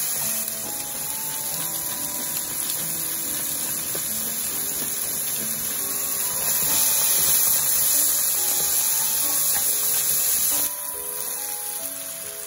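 Bacon, mushrooms and onion sizzling in hot oil in a frying pan, a steady hiss that grows louder past the middle and drops off sharply near the end. A light background melody plays underneath.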